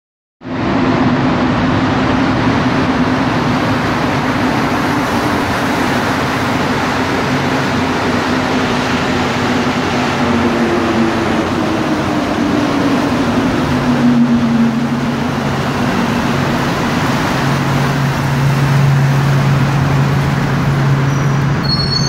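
MPM-10 rubber-tyred metro train arriving and braking into the station: a continuous rush of running noise with a motor hum that slowly falls in pitch as it slows, and a low steady hum coming in about halfway through.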